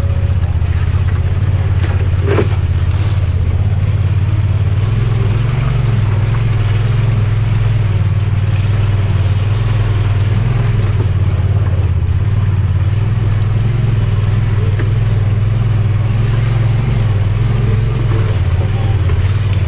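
Side-by-side UTV engine running under way, a steady low drone that rises a little in pitch about five seconds in and settles back down near the end.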